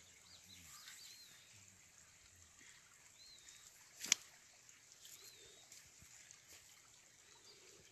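Faint outdoor ambience with a few short, high whistled bird chirps scattered through it, and a single sharp knock about four seconds in.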